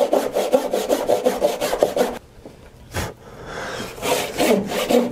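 Brass-backed hand saw cutting down through a thick stack of oak boards in quick, even rasping strokes. The sawing stops about two seconds in, there is a single knock, and softer strokes start again near the end.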